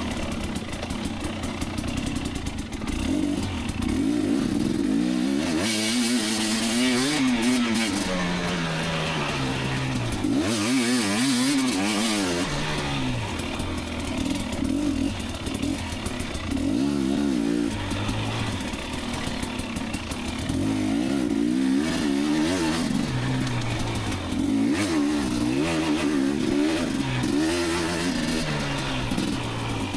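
Two-stroke dirt bike engine under way on a trail, revving up and falling back again and again as the throttle is worked, with brief spells of hiss mixed in.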